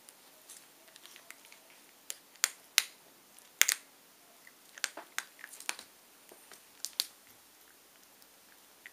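Small dog chewing a hard treat: irregular sharp crunches, the loudest about three and a half seconds in.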